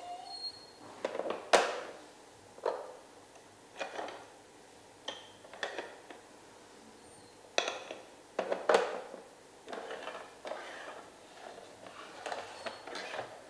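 Hard plastic cones and drawers of a Trixie Move2Win dog puzzle board clacking and knocking as they are set down, pulled open and slid out: a string of separate knocks, the loudest about one and a half seconds in and again near nine seconds.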